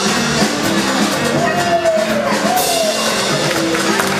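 Upbeat circus-act music with a drum beat, a single melody line sliding up and down in pitch over it.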